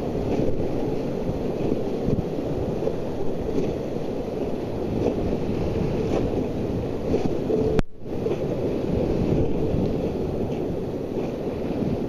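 River whitewater rapids rushing and churning around an inflatable raft, a low, steady rush with wind noise on the microphone. The sound drops out for an instant about eight seconds in.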